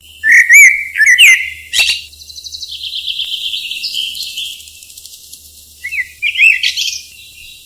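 Birds calling: loud whistled calls that glide up and down in the first two seconds, then a fast chattering trill, then more whistled calls near the end. The sound starts and stops abruptly.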